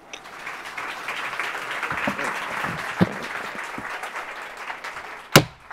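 An audience applauding, building over the first two seconds and then dying away, followed near the end by a single sharp thump, the loudest sound in the stretch.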